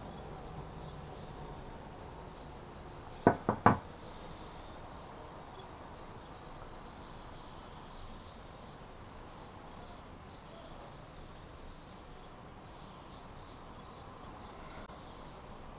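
Three quick, sharp knocks a little over three seconds in, over faint bird chirps in the background.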